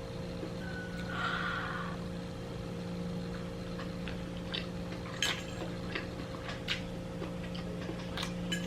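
Eating sounds: a spoon or fork clicking and tapping lightly on a plate, with chewing, over a steady low hum. A short soft scrape comes about a second in.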